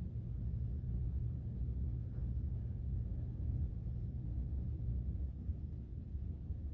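Steady low outdoor rumble with no distinct sounds standing out.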